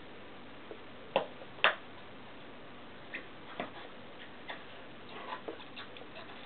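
Labrador puppy chewing a rubbery clog: irregular clicks and small snaps of teeth on the shoe, with two louder snaps about half a second apart just over a second in.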